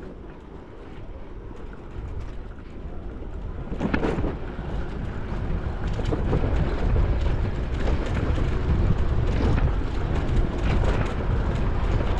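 Wind buffeting the microphone of a bicycle-mounted GoPro action camera during riding: a low rumble that grows louder over the first half and then holds, with a short knock about four seconds in.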